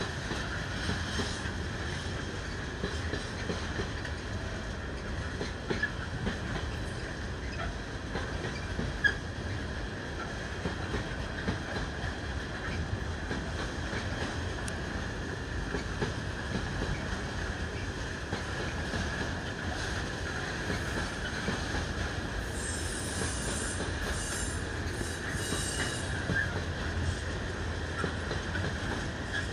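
Container freight train's flat wagons rolling steadily past with a continuous rumble and a steady high wheel squeal.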